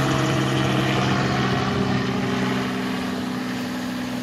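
An engine running steadily: a loud low hum that holds one pitch and eases off slightly in the second half.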